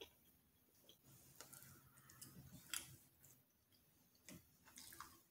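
Near silence with a few faint, short clicks from eating pancakes with a plastic fork, about five in all, the loudest about halfway through.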